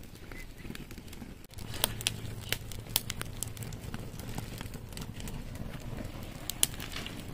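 Open wood fire crackling and popping in a metal tray, with irregular sharp pops over a low steady rumble that sets in about a second and a half in, as it burns the insulation off scrap copper wire packed in a tin can.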